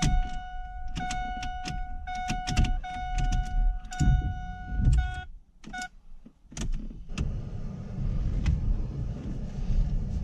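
2001 Ford Focus warning chime sounding as a steady electronic tone in broken stretches, with clicks from handling at the steering column between them; it stops about five seconds in. After a brief lull a steady low hiss and rumble follows.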